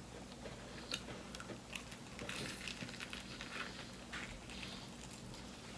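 Faint eating sounds: soft wet clicks and squishes of someone chewing fried chicken dipped in sauce.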